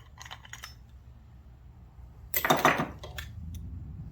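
Small metal hand tools and carburetor parts clattering as they are handled on a workbench. A few light clicks are followed about two and a half seconds in by a loud rattling clatter lasting under a second, then a couple more clicks.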